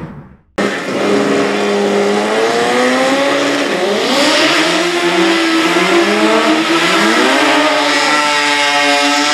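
Two drag-racing cars' engines revving hard during their burnouts, pitch rising and falling repeatedly, with the hiss of spinning tyres from about four seconds in. The sound starts about half a second in.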